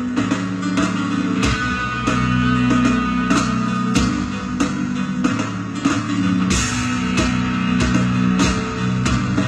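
A rock band playing live at a slow ballad tempo: electric guitar and piano over bass and drums.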